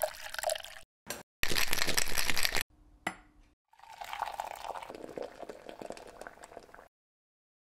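Coffee concentrate poured into a stainless-steel cocktail shaker, then a loud burst of about a second of the shaker being shaken, a short clink, and the shaken espresso martini strained through a bar strainer into a glass martini coupe, a steady liquid pour for about three seconds.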